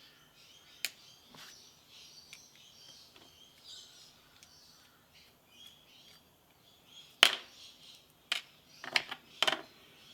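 Sharp metallic clicks and taps from handling a Lockwood V7 pin-tumbler lock as it is taken apart: one about a second in, a loud one about seven seconds in, then four more close together near the end. Birds chirp faintly in the background.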